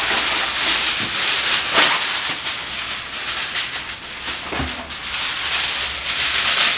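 Aluminium foil crinkling and rustling as a large sheet is pulled from the box and shaken open.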